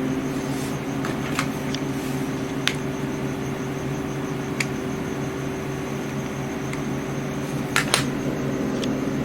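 Steady hum of running desktop computers' cooling fans, with a faint high whine over it. A few sharp clicks come through it, two close together near the end.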